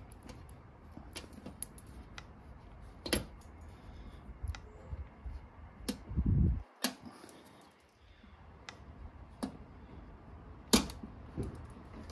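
Fishing line pulled behind the plastic letters of a Tesla's Dual Motor badge, cutting through the foam adhesive: faint rasping with a handful of sharp clicks as the line and letters snap free. There is a low thump about six seconds in.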